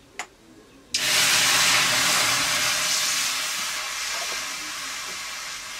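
Liquid poured from a clay jug into a hot wok, setting off a sudden loud sizzling hiss about a second in that slowly dies down. A single small knock comes just before it.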